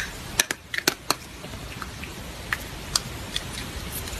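Dry cat kibble clicking and rattling against a small ceramic bowl as fingers pick through it: a few sharp, irregular clicks, a cluster in the first second or so and scattered ones after.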